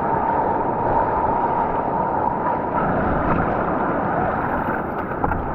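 Steady rushing of whitewater on a man-made rapids channel.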